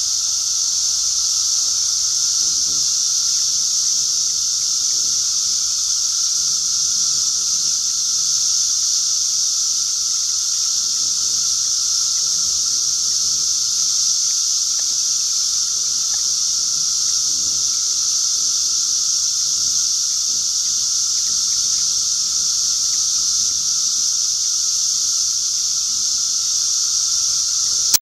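Chorus of 17-year periodical cicadas (Magicicada, Brood III) massed in the trees: a steady, deafening, high-pitched drone that never lets up, with a fainter, lower steady tone beneath it.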